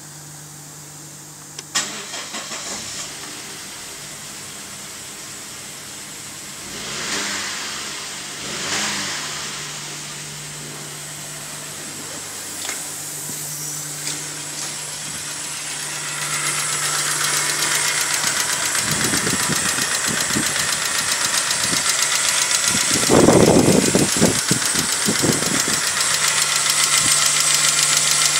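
Saab 9-5's 2.0-litre turbocharged four-cylinder (B205E) petrol engine started about two seconds in, then idling. Later the idle is heard louder and closer, with a fast fine ticking, and a few low thumps from handling near the end.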